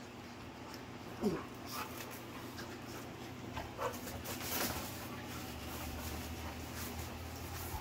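Dogs at play: one dog gives two short vocal noises, about a second in and near four seconds in, with scuffling clicks of movement between them.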